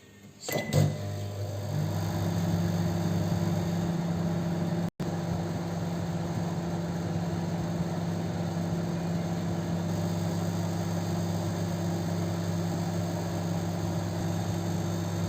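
A couple of clicks under a second in, then a microwave oven running with a steady hum as it cooks a mug cake.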